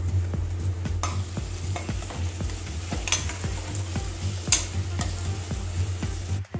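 Chopped onion, ginger, garlic, green chillies and curry leaves sizzling and crackling in hot oil in a stainless steel pressure cooker as a metal slotted spoon stirs them. Two sharper scrapes of the spoon come about three and four and a half seconds in, over a steady low hum.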